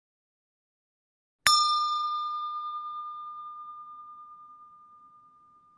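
A single bell ding sound effect from a subscribe-button animation: one clear strike about a second and a half in, then a ringing tone that fades slowly away.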